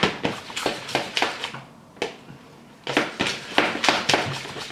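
A plastic spoon stirring and scraping a thick, foamy slime mix of shaving foam and face mask in a plastic bowl: quick clacking strokes, about four or five a second. They pause for about a second partway through, then start again.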